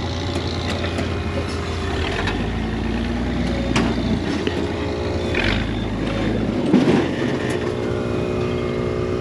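Rock buggy's engine running at low revs as it crawls over large boulders, its revs shifting a few times, with a few sharp clicks.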